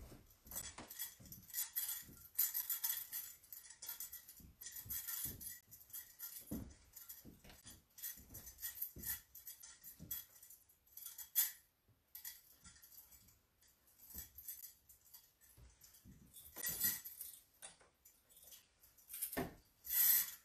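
Metal hand censer jingling on its chains in repeated bursts as it is swung back and forth during the censing of the icons; the loudest bursts come near the end.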